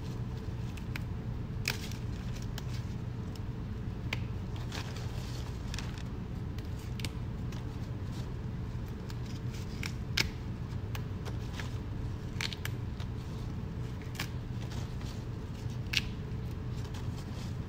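Jute mallow (saluyot) leaves being picked off their stems by hand, with scattered light snaps and rustles, over a steady low hum.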